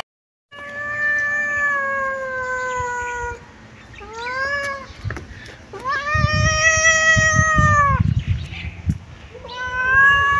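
Kitten meowing four times: a long meow that sinks slowly in pitch, a short rising one, another long meow with low rumbling noise under it, and a fourth starting near the end.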